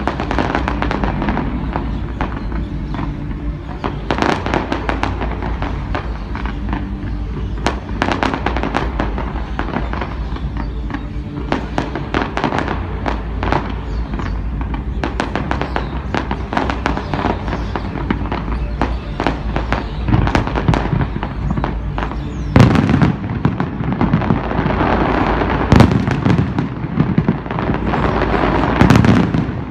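Fireworks going off in a dense, continuous string of pops and crackles, with several louder bangs in the last several seconds.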